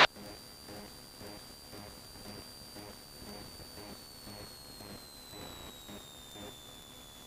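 Faint hiss of the Cessna 172's intercom audio between radio calls, with a thin high whine that slides slowly down in pitch about midway through, then holds steady.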